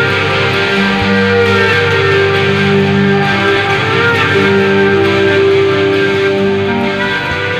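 Background music led by guitar, with held notes changing every second or so.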